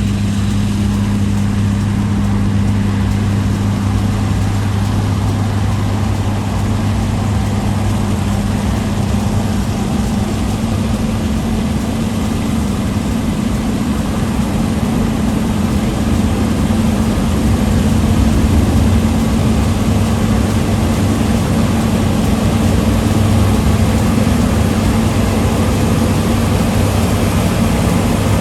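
Heavy farm machinery's large diesel engine running steadily under working load, a loud, even low hum over a broad mechanical rush, swelling slightly past the middle.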